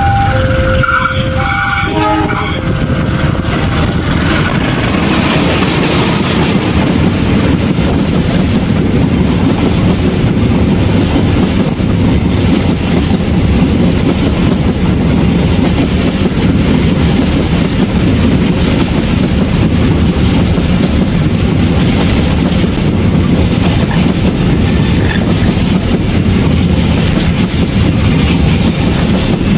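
A diesel locomotive's horn sounds in a few short blasts about two seconds in. Then a train passes close by: a loud, steady rumble with the clickety-clack of wheels over the rail joints.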